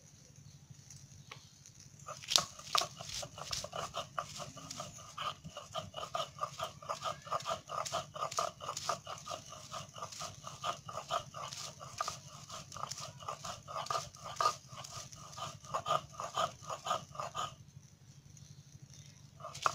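Stone roller grinding a wet paste back and forth on a flat stone slab (shil-nora), making rhythmic rasping strokes about four a second. The grinding starts about two seconds in, pauses briefly near the end, then starts again.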